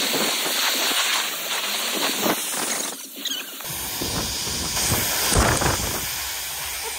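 Pressure-washer jet spraying a bicycle: a steady hiss of high-pressure water. After a brief dip about three seconds in, the spray comes back heavier and splashes right by the microphone.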